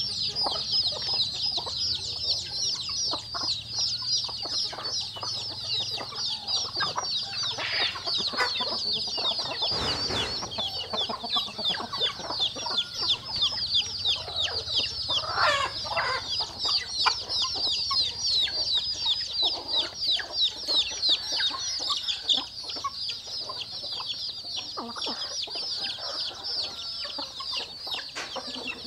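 A flock of chickens with chicks: chicks peeping nonstop in rapid, high, falling peeps, with hens clucking now and then over them.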